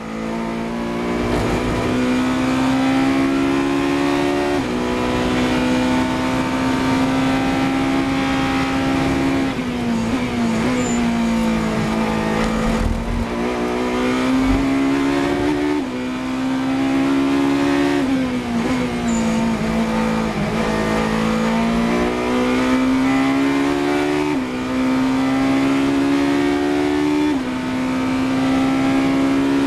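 Ferrari 458 Italia GT3's V8 racing engine at full throttle, heard from on board. Its pitch climbs through each gear and drops sharply at four upshifts. Twice it slides down under braking and downshifts.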